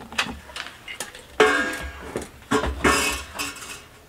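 Metal clanking and rattling as an 80cc Kawasaki dirt bike's engine is worked loose inside its frame: a string of irregular knocks, some with a short metallic ring, the loudest about a second and a half in and another cluster near the three-second mark.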